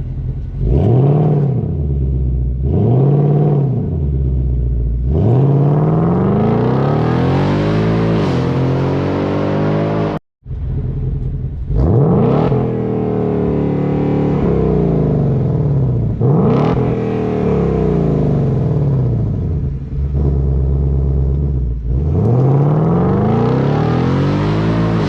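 2020 Ford Mustang GT's 5.0 L Coyote V8 being revved through an exhaust fitted with an H-pipe. It starts with two short blips of the throttle, then revs up and down repeatedly. The sound cuts out briefly about ten seconds in, and the revving carries on.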